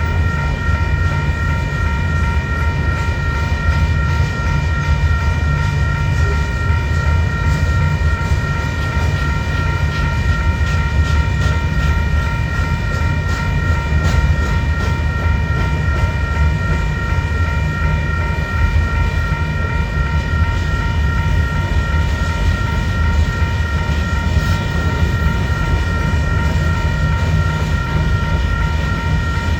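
Union Pacific gravel train rolling past, with a steady low rumble and some clicks of wheels over rail joints. A set of steady high-pitched tones holds without change over the rumble.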